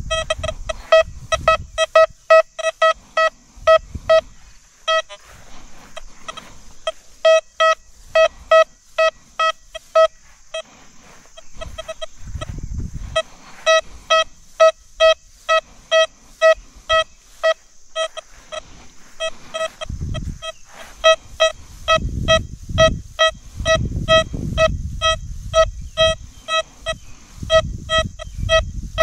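XP Deus 2 metal detector giving quick runs of short beeps, all at one mid pitch, about four a second, as the coil is swept back and forth over a buried Liberty Head V nickel. The runs break off for a second or two several times. A steady high hiss sits behind them, with low rumbling in places, strongest in the second half.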